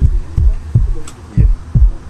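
Heartbeat sound effect: deep low thumps in lub-dub pairs, about one pair a second, used to build tension while a hooked carp is being played.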